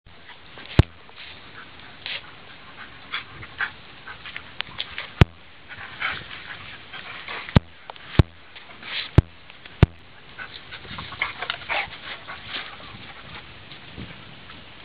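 Two dogs play-wrestling, with short whines and dog noises in quick bursts. Several sharp clicks are scattered through.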